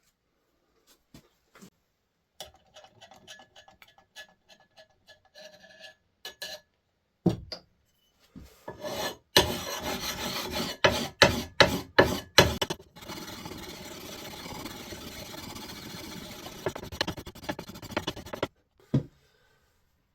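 Hand-worked scraping and rubbing on the axe, like filing or sanding. First a few light scrapes, then about ten loud strokes in quick succession, then several seconds of steady fast rubbing that stops suddenly.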